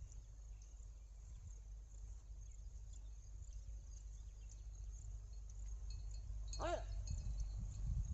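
Low steady rumble of wind on the microphone across an open ploughed field, with faint insect chirping. One short pitched call rings out about two-thirds of the way through.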